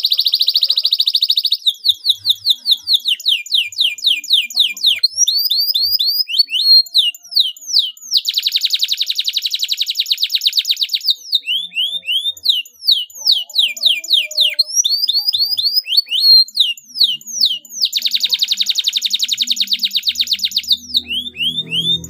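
Domestic canary singing a long, unbroken song: quick runs of repeated down-slurred notes, broken by two long, fast rolling trills, one about eight seconds in and one about eighteen seconds in.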